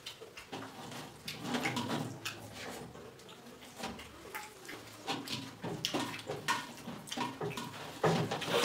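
Wet, irregular smacking and squishing of eating by hand: fingers mixing and scooping rice and gravy on a steel plate, and a mouthful being chewed. The loudest smack is a little before the end.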